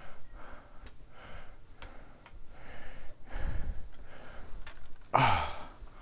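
A person breathing close to the microphone in soft puffs, then a loud sigh that falls in pitch about five seconds in.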